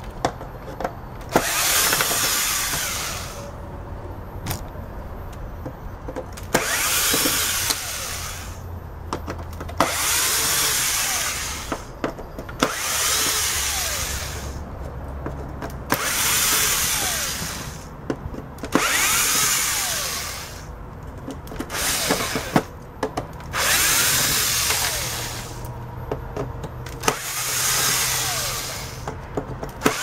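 Power drill-driver with a T20 Torx bit backing screws out of the plastic hose cover of a Hoover upright vacuum. The drill runs in about nine bursts of roughly two seconds, one every three seconds or so, with sharp clicks between bursts.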